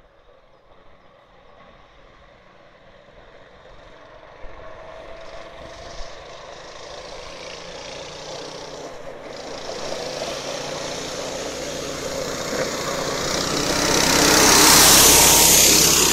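Small engine of a tracked snow sled running steadily as it approaches, growing louder and passing close by about fifteen seconds in, with a hiss that is loudest as it passes.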